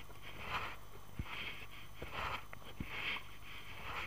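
Sea kayak paddle strokes on alternate sides, each blade dipping and splashing in the water about once a second, with a couple of light knocks between strokes.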